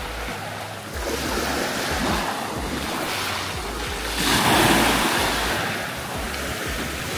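Small sea waves washing in and out over a pebble beach in gentle surges, the biggest wash about four seconds in, with wind rumbling on the microphone.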